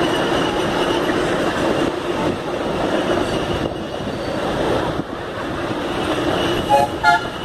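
Ride-on miniature railway train running along its track, heard from aboard: a steady rumble and clatter of wheels on rails. Near the end come two short pitched toots, the loudest sounds.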